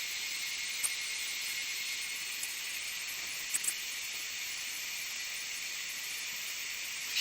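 Laser metal deposition head running: a steady hiss, broken by a few sharp crackles, one about a second in and a quick pair a little past the middle.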